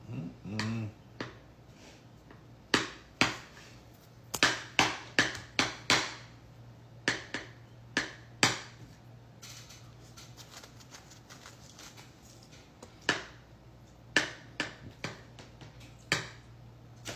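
Metal spoon clinking and scraping against a ceramic bowl as food is scooped up: sharp clicks in quick runs, with a quieter stretch in the middle. A brief murmur of voice about half a second in, and a steady low hum underneath.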